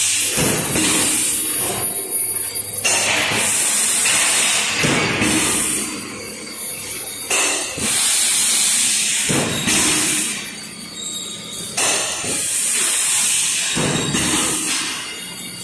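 SY-680B plastic cup thermoforming production line running, a steady mechanical din with loud hisses that come and go every few seconds.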